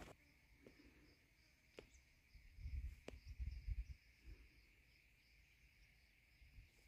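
Faint, steady insect chirring with a pulsing higher note above it, close to silence. A few low thuds and rumbles come around the middle.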